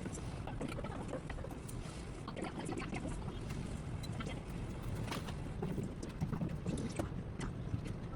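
Typing on a mechanical keyboard with lubed Glorious Panda tactile switches in a brass plate and GMK keycaps: irregular clacks, several a second, over a steady low hum.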